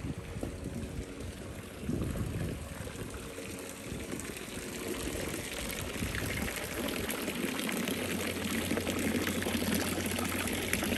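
Water from a fountain spout pouring and splashing into the fountain's basin, faint at first and growing louder from about halfway through.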